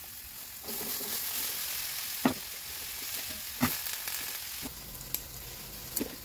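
Food frying in hot oil in a steel wok, a steady sizzle. Several sharp knocks come through it, the loudest about two seconds in and again a second and a half later.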